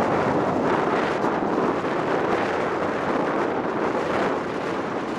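Wind buffeting the camcorder's microphone: a steady, loud rushing noise.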